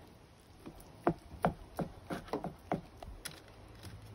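Knife blade knocking on a wooden cutting board: about seven short, quick knocks in under two seconds, starting about a second in.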